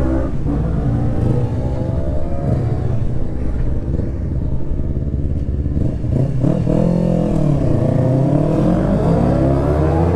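Racing motorcycle engines revving as bikes accelerate out of the pit lane onto the track, one after another. About six seconds in, one engine's pitch falls and then climbs again.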